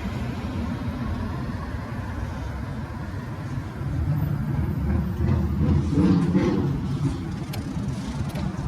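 Street traffic: a motor vehicle's engine rumbling, swelling louder about halfway through as it passes, then easing off.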